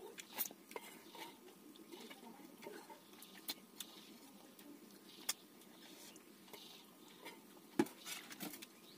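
Fingers scraping and wiping the inside of a small stainless-steel bowl, with scattered faint clicks of fingers on metal and one louder knock near the end.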